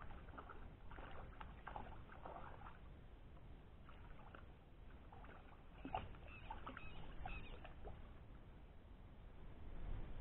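Faint water splashing and scattered clicks as a small fish is landed from a creek by rod and line, the sharpest splash about six seconds in, over a low steady rumble.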